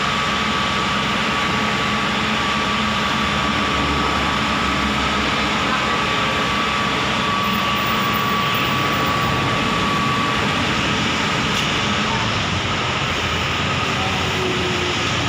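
Heavy diesel engine running steadily, with a thin high whine that fades out about ten seconds in.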